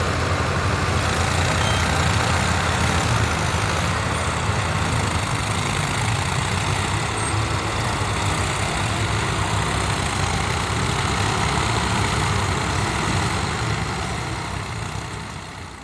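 New Holland 3630 tractor's three-cylinder diesel engine running steadily under load as it drags a land leveller through soil. The sound fades out near the end.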